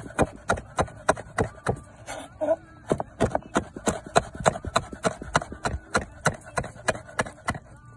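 Kitchen knife chopping green peppers on a cutting board: quick, even knocks about four a second. There is a short break a couple of seconds in, and the chopping stops just before the end.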